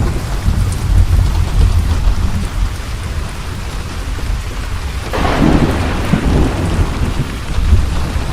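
Steady rain with thunder: a low rolling rumble through the first few seconds eases off, then a louder thunderclap breaks in about five seconds in and rumbles on to the end.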